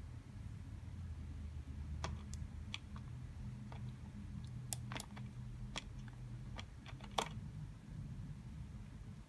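Irregular light clicks and taps of small plastic pieces being handled, about a dozen, with one sharper click near the end, over a low steady hum.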